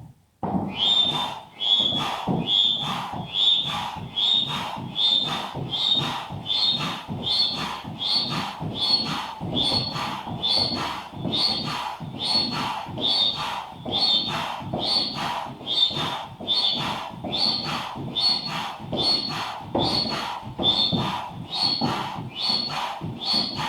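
Manual air pump inflating an inflatable boat, worked in a steady rhythm of about four strokes every three seconds, each stroke a rush of air with a short squeak.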